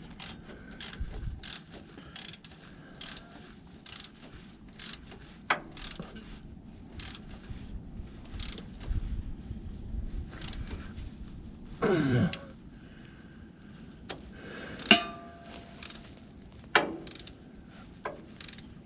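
Hand socket ratchet turning a starter mounting bolt in short strokes, its pawl clicking one click at a time, slightly faster than once a second. A few louder metallic clinks come later, one ringing briefly.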